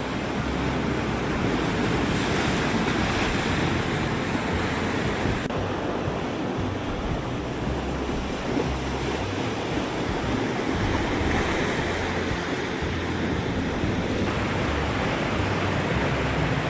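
Ocean surf washing onto a beach, a steady rush of waves, with wind buffeting the microphone.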